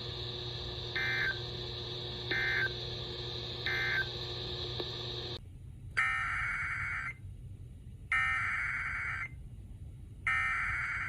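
Emergency Alert System SAME data tones: three short, harsh digital bursts over a steady radio hum, marking the end of the previous alert. Then, after a change in background about five seconds in, three longer, screeching bursts of about a second each, about two seconds apart, which are the coded header of the next warning.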